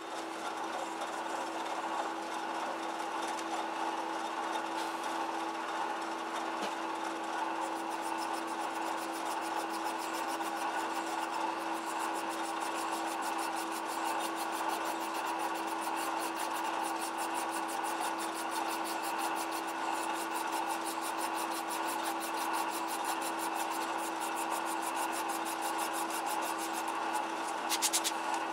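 Lathe running with a fine hand file rasping against the spinning metal pulley in quick, evenly repeated strokes. The file is knocking the cusps off the turned grooves of the crown until the layout blue just disappears, bringing the surface to size.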